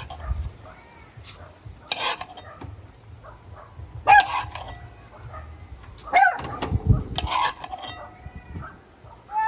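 Chickens clucking and squawking: several short, loud calls a second or two apart.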